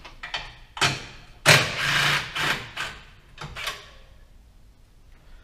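A hand tool working a 10 mm bolt loose on the underside of a Renault Twizy's traction-battery charging unit: several short bursts of metal clicking and scraping, the loudest and longest about a second and a half in.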